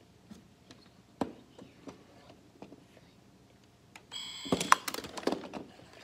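Light clicks and taps of plastic Playmobil hockey figures and pieces being handled on the toy rink, with one sharper knock about a second in. About four seconds in, a louder stretch of rubbing, scraping and several knocks as an arm brushes close to the microphone.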